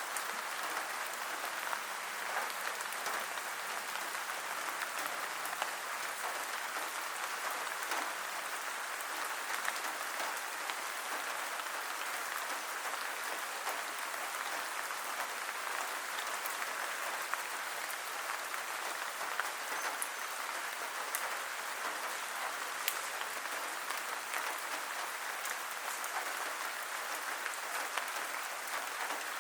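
Steady rain, an even hiss of many drops with occasional sharper ticks.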